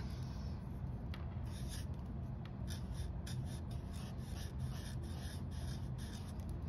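Black felt-tip marker drawing on paper: a run of short strokes of the tip across the sheet, one after another, over a faint steady hum.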